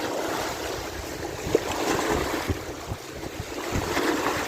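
Wind buffeting the microphone and lake water lapping against the dam's shoreline: a steady rough rush with a few soft low thumps.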